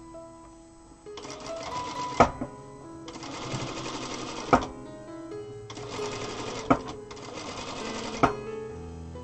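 Zoje ZJ9703AR-D4J industrial sewing machine stitching a seam in four short runs of about one to one and a half seconds each, with a sharp clack as each run stops. Plucked-string background music plays throughout.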